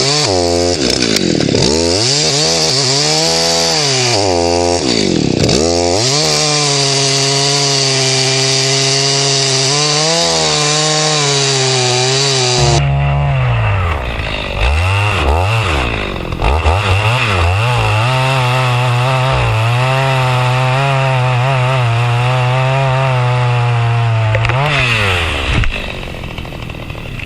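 Two-stroke chainsaw at full throttle cutting through a tree trunk. The engine pitch dips and climbs back several times in the first few seconds and again around the middle, and it drops away near the end.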